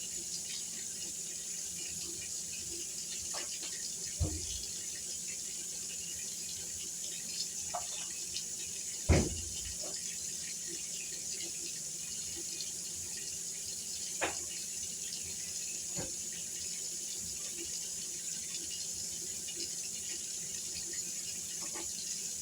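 Kitchen handling sounds while raw chicken breasts are seasoned: a few light knocks and clicks, the loudest about nine seconds in, over a steady hiss.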